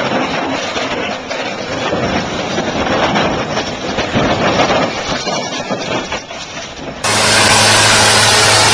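A heavy machine's engine running, with uneven rough noise over it. About seven seconds in, it cuts suddenly to a louder, steady rushing noise with a low hum.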